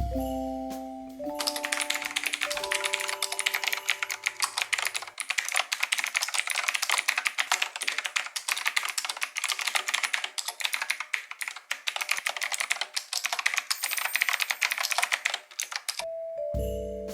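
Rapid, continuous typing on a typewriter-style mechanical keyboard (Knewkey Rymek), a dense clatter of key clicks that stops near the end. Soft mallet-toned background music plays under the first few seconds and comes back right at the end.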